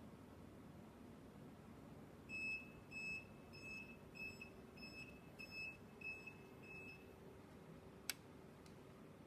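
Tomy Seiko fixed-position-stop centrifuge's control panel beeping, about nine short high beeps roughly half a second apart, signalling the end of the run. A single sharp click follows near the end.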